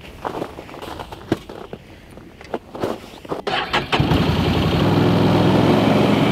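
Scattered footsteps and knocks as a person climbs into a Can-Am side-by-side, then about four seconds in its engine starts and runs steadily as the vehicle pulls away.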